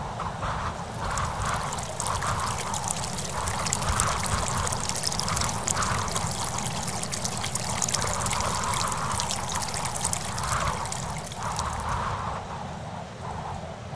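Water pouring from a spout into a stone trough, splashing and trickling steadily, with wind rumbling on the microphone. The splashing eases near the end.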